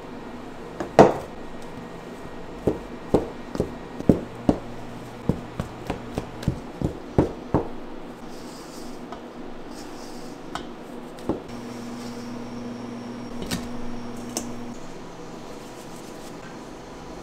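A series of sharp knocks of hard objects on a work surface: one loud knock about a second in, then about a dozen quick ones over the next five seconds and a few scattered ones after. A steady low machine hum runs for about three seconds near the end.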